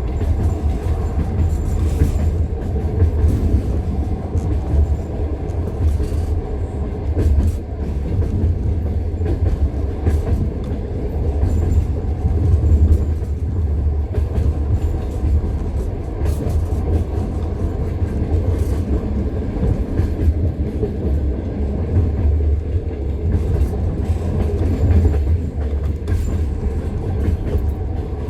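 Passenger train wheels clickety-clacking over the rail joints of jointed (non-welded) track, with knocks at irregular intervals over a steady low rumble of the running train, heard from inside the train.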